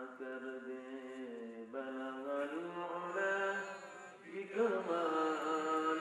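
A man's voice chanting an Islamic religious recitation in long, melodic held notes. The pitch steps up a little under two seconds in and shifts again past the four-second mark.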